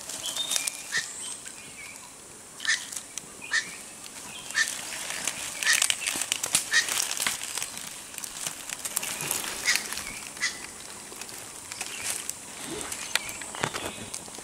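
Crackling and rustling of dry bamboo leaves and twigs underfoot as someone steps slowly through leaf litter, with short high chirping calls repeating about once a second.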